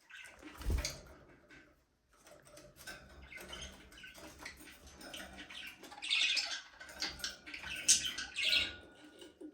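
Budgerigars chirping and chattering together, with louder, squawky calls in the second half. A low thump sounds about a second in.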